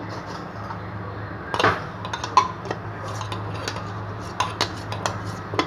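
A spoon clinking and scraping against a container as soap foam is scooped out, with irregular sharp knocks from about a second and a half in, over a steady low hum.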